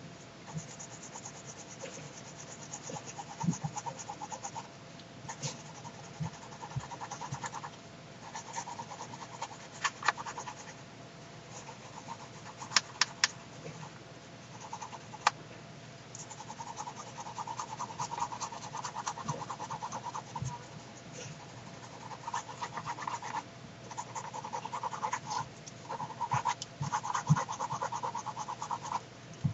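A pen or pencil writing on paper: long stretches of scratchy strokes broken by short pauses, with a few sharp clicks.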